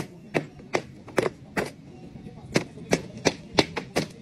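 A rapid series of sharp knocks, about two to three a second, with a pause of about a second partway through.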